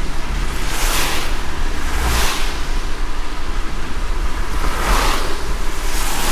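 Heavy rain falling, a loud steady hiss over a low rumble that swells briefly every second or two.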